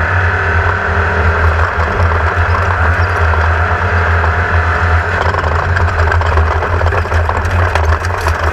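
Air-cooled VW engine of a Class 1600 off-road race buggy running hard, heard on board. From about halfway through, the chassis rattles and clatters over rough ground.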